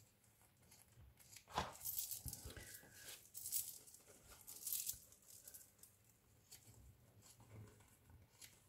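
Small scissors snipping through a thin paper napkin, with the paper rustling and crinkling as it is handled and turned. The cuts and rustles come irregularly, busiest in the first half, then fainter.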